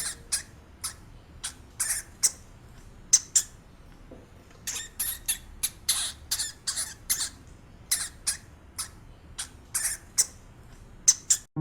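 An animal giving short, sharp, high-pitched squeaks, one or two a second at irregular intervals, over a low background hiss.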